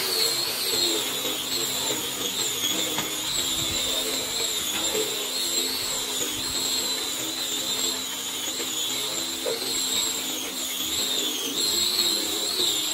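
Electric power tool running steadily with a high-pitched motor whine that wavers and dips slightly as it is worked, over a steady low hum.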